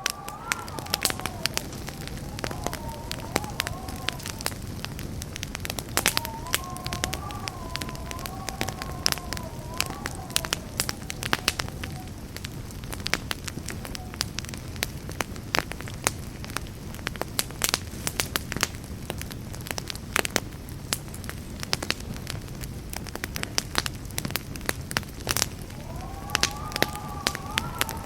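Campfire burning, with frequent sharp crackles and pops from the wood over a steady low rumble of flames. A faint wavering, whistle-like tone drifts in and out at the start, in the middle and near the end.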